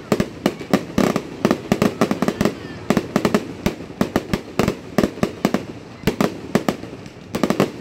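Fireworks display going off in a dense barrage: sharp bangs and cracks in quick, irregular succession, several a second.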